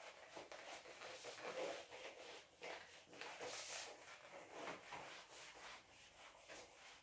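Whiteboard eraser wiping marker ink off a whiteboard in a series of faint rubbing strokes.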